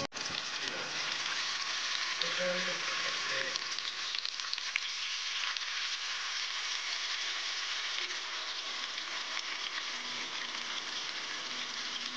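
Seasoned chicken pieces searing in hot oil in a nonstick pan: a steady sizzle and crackle of frying, with a few light clicks.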